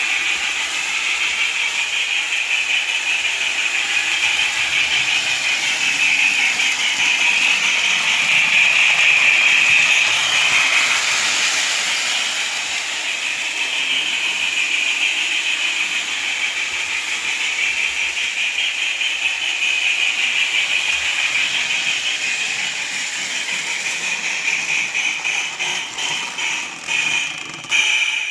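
Lionel model steam train running on track: a steady mechanical clatter of motor gears and wheels with a hiss. It cuts off suddenly at the very end.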